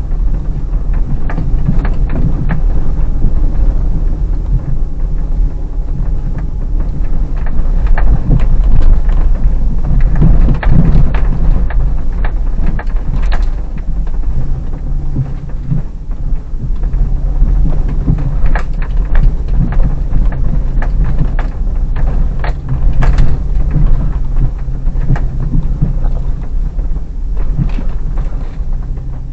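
Hyundai Terracan's 3.5 V6 engine running at low revs, heard from inside the cabin as a deep steady rumble. Over it come frequent irregular knocks and crackles as the car rolls slowly over the rough, snow-covered track.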